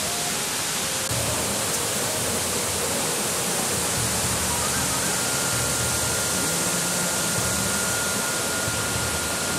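Steady rushing of water under faint background music: soft held notes, with one high note held from about halfway through.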